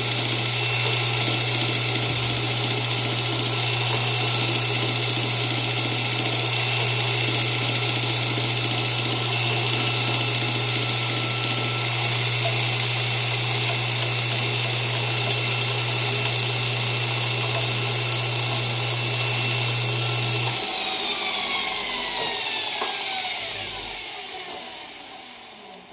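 A 2x72 belt grinder on a 1942 Delta Milwaukee Toolmaker surface grinder runs steadily while surfacing a steel laminate, taking its mill finish down to a prepared surface. About twenty seconds in, the motor hum cuts off and the machine spins down, its whine falling in pitch and fading away.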